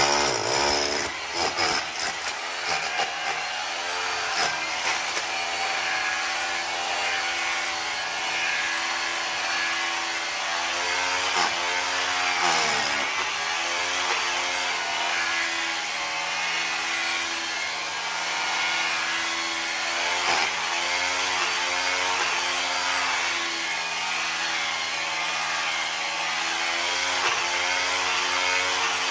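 Corded electric drill with a long masonry bit boring into a concrete floor, running continuously. Its motor pitch dips now and then as the bit bites, most deeply about twelve seconds in.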